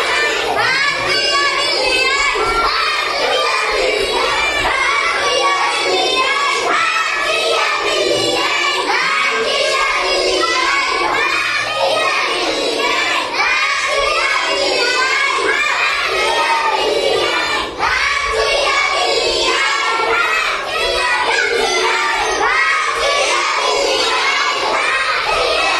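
A crowd of children shouting and cheering together, with many high voices overlapping without a break.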